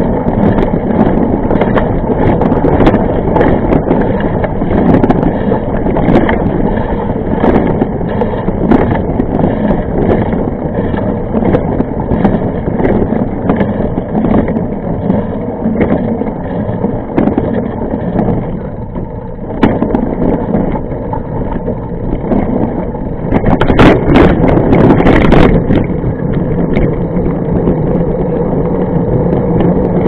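A mountain bike rolling over a rough trail, heard as steady rumbling noise with frequent rattling knocks; the ride gets louder and rougher for a couple of seconds about three quarters of the way in.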